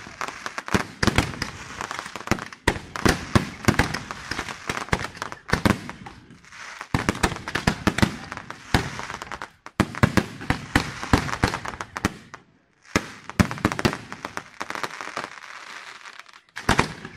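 Aerial fireworks display: a dense barrage of shells bursting in rapid sharp bangs, with crackle in between and a few brief lulls.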